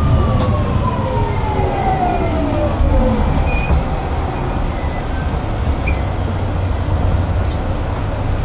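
Train running noise from a JR 209-1000 series electric train, with the whine of its early unrenewed Mitsubishi GTO VVVF inverter falling steadily in pitch over the first three seconds as the train slows, then fading out. A steady low wheel-and-rail rumble continues underneath.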